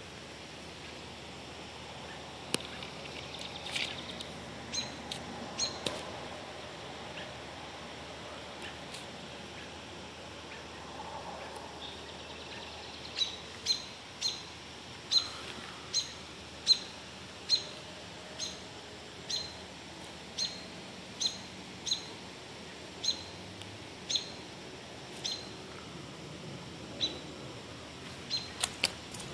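A small bird chirping: a few scattered short, sharp chirps, then from about halfway a steady series of them, roughly one a second.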